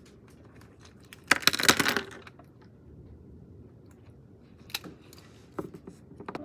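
A rattling clatter of small hard objects lasting under a second, followed near the end by a few scattered light clicks and taps.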